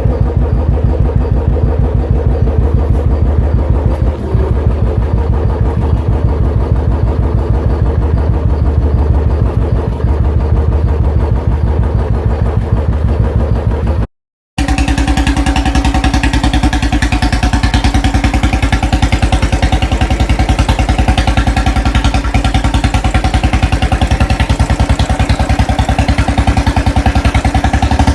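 Royal Enfield single-cylinder engine running steadily through an aftermarket silencer, with an even, deep thump. About halfway through it cuts to another silencer on the same kind of bike, whose exhaust note is sharper and brighter.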